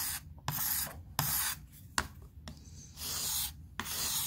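Knife blade drawn across the 3000-grit side of a wetted 1000/3000 combination whetstone: a series of short scraping strokes with brief pauses between, as the edge is refined on the fine grit.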